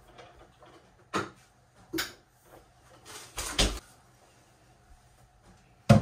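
Kitchen clatter from groceries being unpacked and put away: a few separate sharp knocks and clunks of items and fittings, one of them a quick double, with the loudest near the end.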